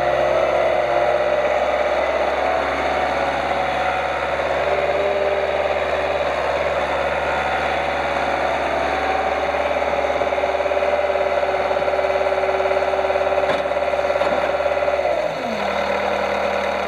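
2007 Bobcat S130 skid steer loader's diesel engine running steadily at raised speed. Near the end its pitch glides down as it throttles back to a lower idle.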